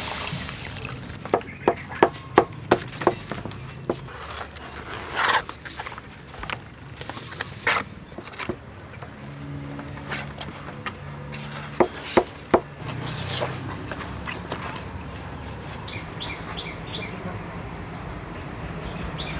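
A knife cutting and trimming fresh banana leaves on a wooden tabletop: scattered sharp clicks and knocks, including a quick run of about six in the first few seconds, with short rustles of the leaf.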